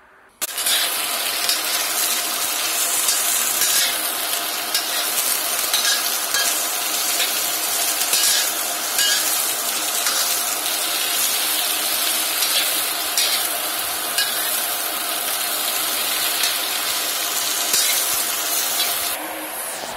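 Sliced zucchini sizzling in hot oil in a wok, stir-fried with a metal spatula that scrapes and clicks against the pan. The sizzle starts suddenly about half a second in.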